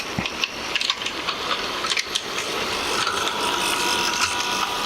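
G scale model train's small electric motor and gearbox whirring as it runs in reverse, with scattered sharp clicks; a thin steady whine comes in about three seconds in.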